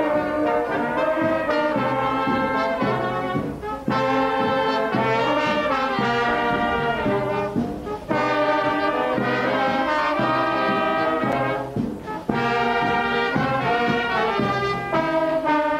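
Brass band playing a tune with trumpets and trombones over a steady low bass beat, the phrases breaking off about every four seconds.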